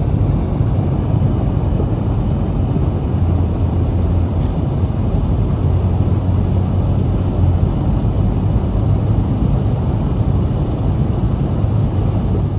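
Car travelling at highway speed, heard from inside the cabin: a steady low rumble of tyre and road noise.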